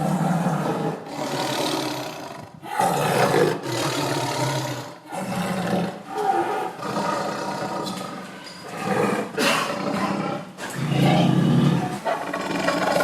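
Tiger roaring over and over: a string of loud roars, each one to two seconds long, with short breaks between them.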